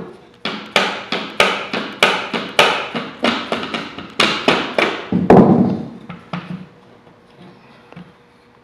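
Rubber mallet striking a wooden cabinet-door frame in quick repeated blows, about four a second, knocking the frame apart from a test fit. The heaviest blow lands near the end of the run, and the blows stop about three-quarters of the way through.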